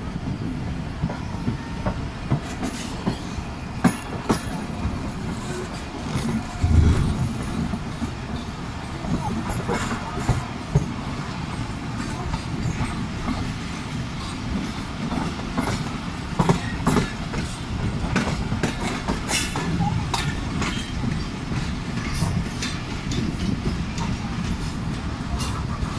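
Tezgam Express passenger coach running along the track, heard from the coach's side: a continuous low rumble with frequent clicking and knocking of the wheels over the rails, the loudest knock about seven seconds in.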